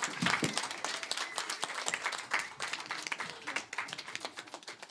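Audience applauding, many hands clapping, thinning out and fading toward the end, with a few voices calling out.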